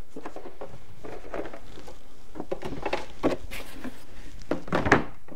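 Hard plastic carrying case of a Foxwell BT705 battery tester being opened and the tester with its clamp cables taken out: scattered clicks, knocks and rattles, with a louder knock near the end.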